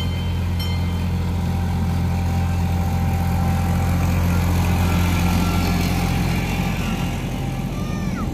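Miniature ride-on train's engine running with a steady low drone as the locomotive hauls its loaded passenger cars past, growing a little louder around the middle.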